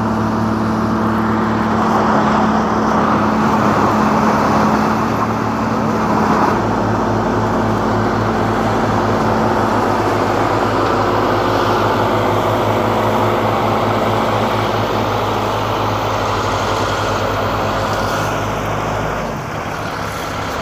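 Cold planer's diesel engine running steadily under load, with a deeper low tone joining about six and a half seconds in and dropping away shortly before the end.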